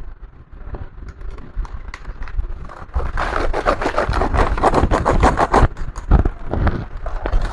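Rapid scraping and rubbing strokes with clicks from hands working on a laptop's plastic casing. They build up about three seconds in and run densely for nearly three seconds, then thin out to a few knocks.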